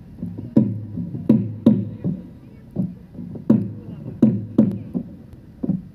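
Folk dance music led by a drum struck about ten times in a loose, uneven beat, each stroke ringing low and dipping slightly in pitch.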